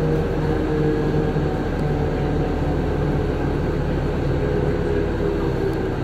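1996 New Flyer D40LF transit bus's Detroit Diesel Series 50 four-cylinder diesel engine running steadily, heard from inside the passenger cabin. The engine's pitch sags slightly near the end.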